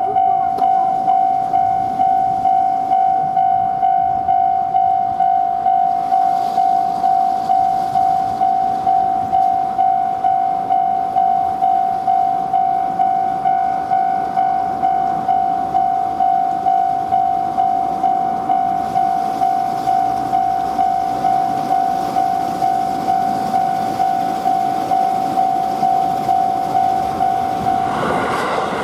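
Japanese railway level-crossing warning bell ringing its 'kan-kan' at about two strokes a second, over the growing rumble of an approaching train. Near the end the bell stops and the train's running noise takes over.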